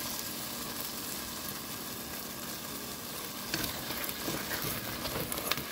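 A steady kitchen hiss, joined about three and a half seconds in by light clicks and scrapes of a utensil against pots and dishes as food is handled.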